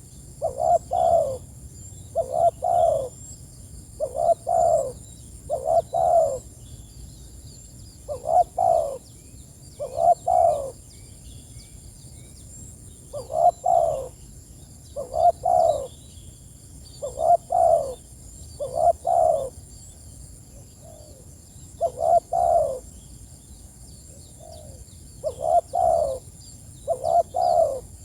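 Spotted dove (tekukur) cooing over and over: short low phrases of two or three coos, about one phrase every one and a half to two seconds, with a few longer pauses. Faint high chirps sound in the background.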